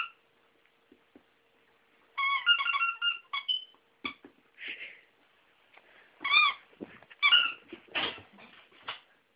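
Squeaky dog toy squeaking in several short runs of high squeaks as a puppy bites and chews on it.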